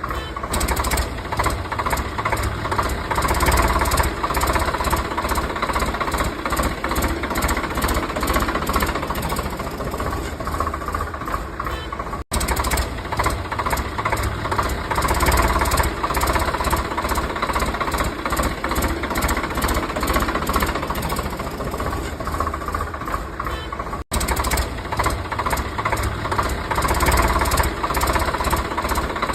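A tractor-like engine running with a rapid, steady knocking rattle and a low rumble. It cuts out for an instant twice, once about halfway through and again near the end.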